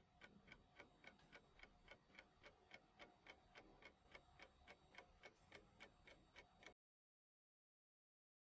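Near silence, with very faint regular ticking at about four ticks a second that stops about two seconds before the end, leaving total silence.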